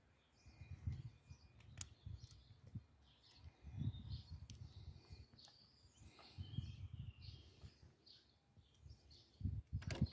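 Small birds chirping repeatedly in short calls, over a low rumble that comes and goes, with a couple of sharp clicks.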